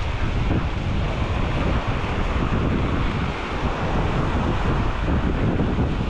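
Wind buffeting the microphone in a loud, fluttering rumble, over the steady hiss of small waves washing up on the sand.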